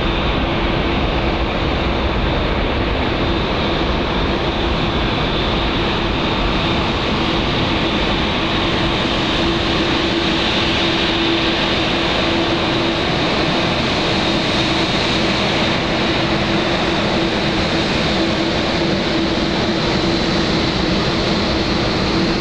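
Boeing 747-400 freighter's four General Electric CF6-80C2 turbofans at takeoff power, loud, steady jet noise with a constant hum and a high whine, as the jumbo jet takes its takeoff roll, lifts off and climbs out.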